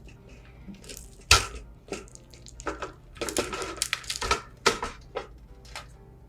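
Irregular clattering knocks and clicks, like hard objects being handled and set down, with one loud knock about a second in and a busier run of clatter in the middle.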